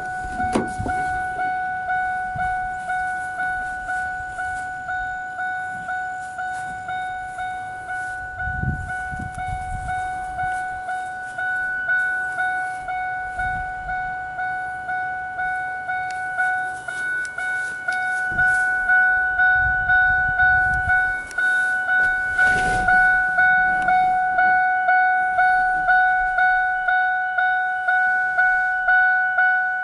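1997 Ford F-150's door-open warning chime: a single steady bell-like tone repeating about one and a half times a second, set off by the open driver's door. A few dull thumps sound under it, about nine and twenty seconds in.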